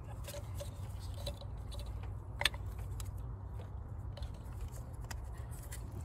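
Replacement ignition coils being handled and pushed by hand onto the spark plugs of a Saab 9-3 engine that is not running: small plastic clicks and rustles, with one sharper click about two and a half seconds in, over a steady low rumble.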